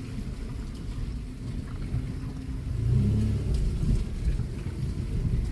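Car engine and tyre rumble heard from inside the cabin while driving slowly over a rough, potholed dirt road. The engine note swells about three seconds in, and there are a few faint knocks.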